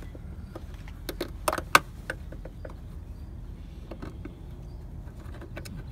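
Hands working at the rubber air-intake duct in a car's engine bay make a string of short plastic clicks and knocks. The two loudest come a little under two seconds in, over a steady low rumble.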